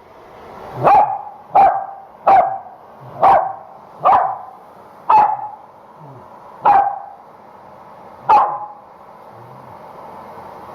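A corgi barking, eight sharp single barks, the gaps between them growing from under a second to nearly two seconds.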